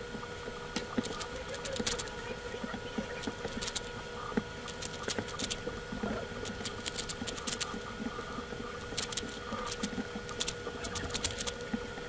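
Plastic clicking and clacking of a YJ MoYu AoSu 4x4 speed cube as its layers are turned quickly by hand during a solve, in irregular rapid runs of clicks.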